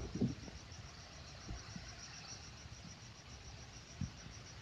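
A cricket chirping steadily: a faint, even train of high-pitched pulses, several a second. A soft low bump about four seconds in.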